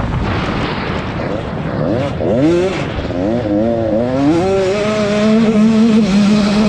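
Racing motorcycle engines on a dirt track. About two seconds in, one engine's pitch climbs and drops in several quick surges, then it holds a steadier high note while others run underneath.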